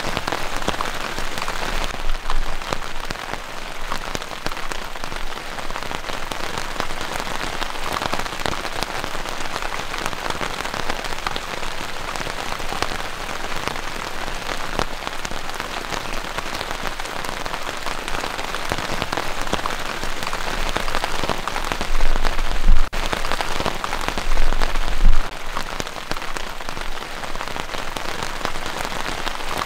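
Heavy rain falling steadily on a surface, a dense hiss dotted with individual drop hits. Brief low rumbling bumps come once early and twice about three-quarters of the way through, consistent with wind buffeting the microphone.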